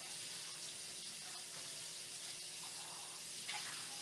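Kitchen tap running steadily into a stainless steel sink, the stream splashing as hands rinse dishes under it.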